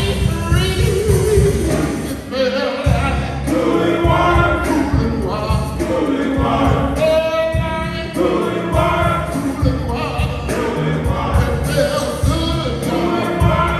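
Male gospel chorus singing, several men's voices in harmony.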